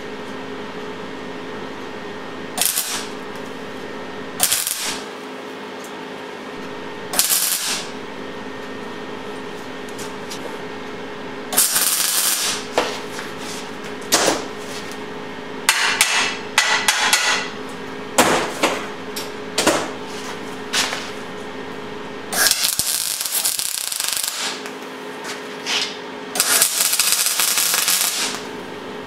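Wire-feed (MIG) welder arcing on a steel hoist frame: a few short crackling tack welds in the first several seconds, then longer sputtering weld runs, each lasting about a second or two, from about a third of the way in. A steady electrical hum from the welder runs underneath.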